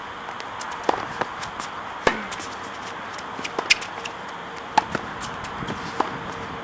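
Tennis rally on a hard court: sharp racket-on-ball hits and ball bounces about once a second, over a steady background hiss.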